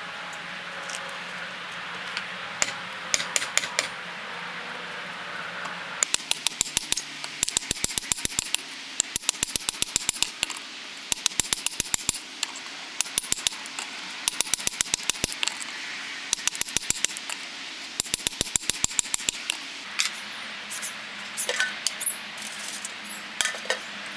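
Hand hammer striking hot steel on a railroad-track anvil, in quick bursts of rapid, ringing blows with short pauses between them, from about six seconds in. A steady hiss runs underneath.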